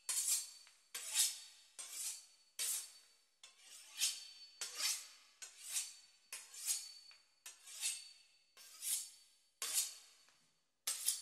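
A knife sawing back and forth through the crisp pastry crust of a beef Wellington, in short, even strokes about one and a half a second.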